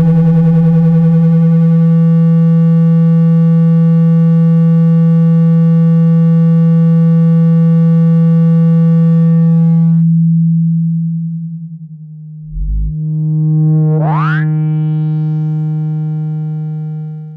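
Synthesized speaker-cleaning tone, played loud to shake water and dust out of a phone speaker: a steady low tone with a buzzy edge. Its buzz fades out about ten seconds in, a short deep thump follows, and a quick rising sweep comes about fourteen seconds in before the plain low tone goes on.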